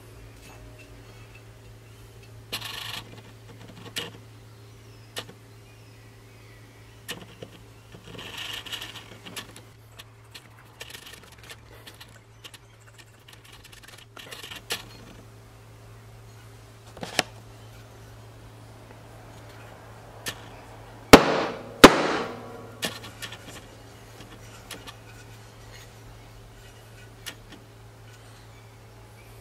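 Small clicks, taps and scrapes of a homemade mallet's parts, an aluminium handle, steel head and white plastic faces, being handled and screwed together, over a faint steady hum. About three quarters of the way through come two sharp knocks less than a second apart, the loudest sounds here.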